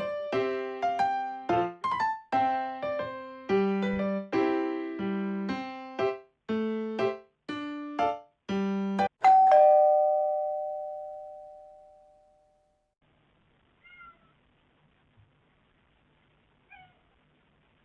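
Background electric-piano music playing a melody, its last note ringing out about nine seconds in and fading away. After a few seconds of quiet, a British Shorthair kitten meows faintly twice.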